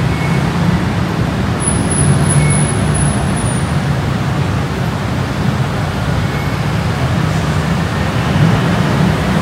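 Road vehicle noise: a steady low rumble with no distinct events.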